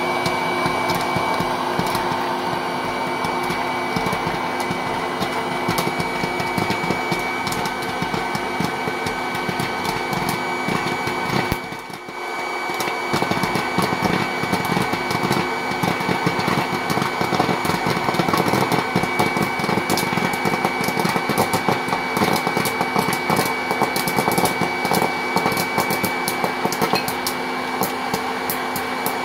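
Popcorn maker running with a steady motor hum while kernels pop in many sharp cracks. The pops come thicker in the second half, and the hum dips briefly about twelve seconds in.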